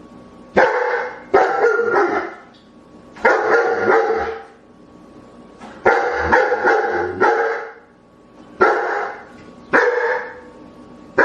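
Dogs barking loudly in repeated bouts of a few barks each, with short pauses between bouts.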